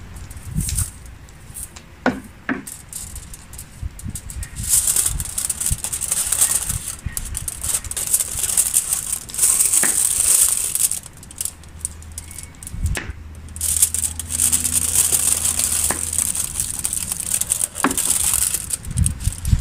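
Aluminium foil crinkling and rustling as it is wrapped and pressed by hand around a pumpkin, in two long spells, with a few short knocks.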